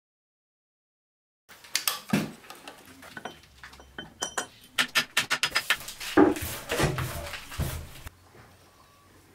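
Silence for the first second and a half, then a run of sharp metal clinks and clatter as a machined metal bracket is handled in a milling-machine vise among metal chips and the vise handle is worked. The clatter stops about a second before the end.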